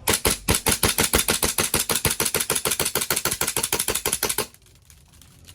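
Army Armament TTI Pit Viper Hi-Capa gas blowback airsoft pistol firing a fast string of shots, about nine a second, its slide cycling with each one. The string stops about four and a half seconds in, when the magazine runs empty.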